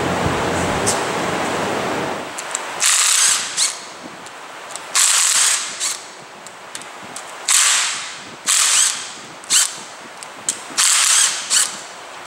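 Cordless impact driver hammering bolts home into an engine block in about six short bursts, each under a second, spaced a second or two apart. Before the bursts start there are about two seconds of steady rushing noise.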